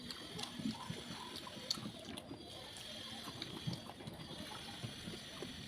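Wet eating sounds of rice and spicy fish curry being mixed and eaten, with many small irregular clicks and smacks.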